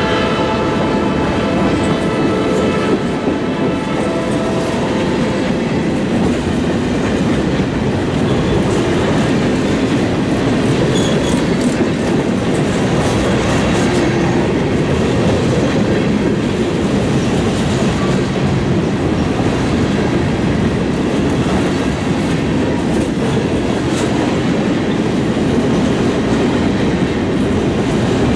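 Covered hopper cars of a freight grain train rolling past close by: a steady, loud rumble of steel wheels on rail, with wheels clicking over rail joints. A ringing tone fades out within the first few seconds.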